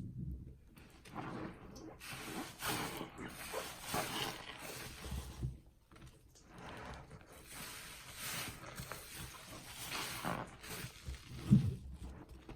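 Soapy sponge being squeezed and worked in lather: wet squelching and crackling of foam in irregular bursts, with one louder squelch near the end.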